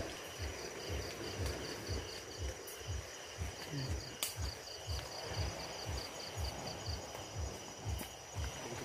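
Night insects chirping in a high, even pulse about four times a second that stops near the end, over a steady high insect drone. Soft low bumps recur underneath.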